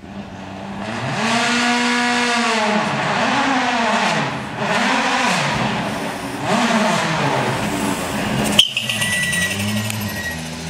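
Toyota Yaris WRC rally car's turbocharged four-cylinder engine revving up and down repeatedly as the car approaches and passes close by. There is one sharp bang about three-quarters of the way through.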